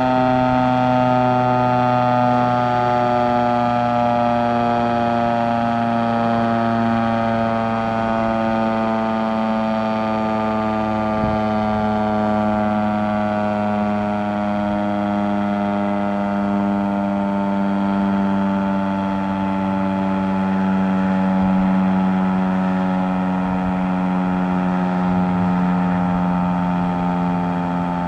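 Federal Signal STH-10A three-phase electromechanical fire siren, a single-tone chopper, sounding loud with its pitch sliding slowly and steadily down as the rotor winds down.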